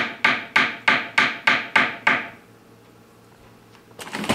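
Hammer striking wire flat on a steel bench block, about three sharp, ringing strikes a second: cold-forging the wire into a taper. The strikes stop a little over two seconds in, and a short clatter of clicks follows near the end.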